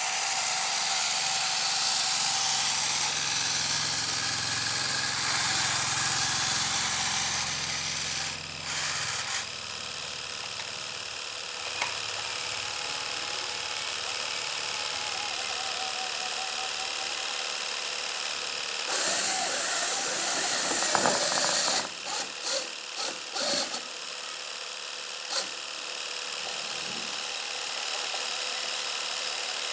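Small motor whirring with a steady high whine, stopping and restarting briefly about a third of the way in, then switched on and off in several quick bursts about two-thirds through.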